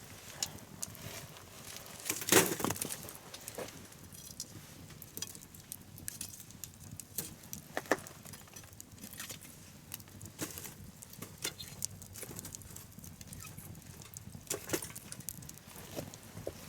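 Wood bonfire crackling, with irregular sharp pops scattered through and the loudest burst of crackles about two seconds in.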